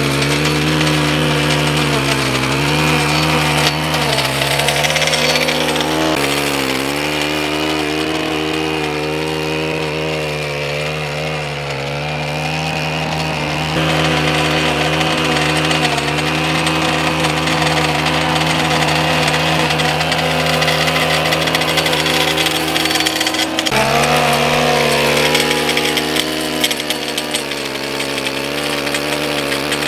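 Stihl gas stick edger running at high throttle while its blade cuts a sidewalk edge. The engine note wavers and dips as the blade bites into the turf, with a few sudden jumps in the sound.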